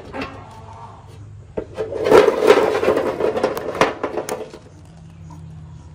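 Chicken eggs rolling and clattering down a tilted sheet-metal pan: a rumbling scrape with many sharp knocks, starting a little under two seconds in and lasting about three seconds.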